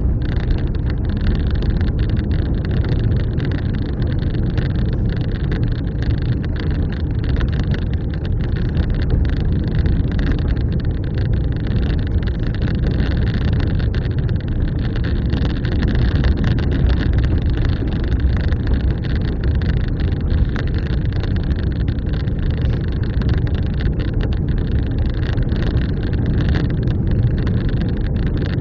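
Car driving along, heard from inside the cabin: a steady rumble of engine and tyre noise.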